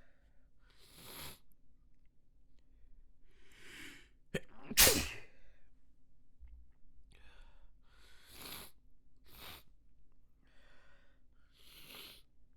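A person's sneezing fit, snotty and wet: one loud sneeze about four and a half seconds in, among several shorter, quieter noisy breaths before and after it.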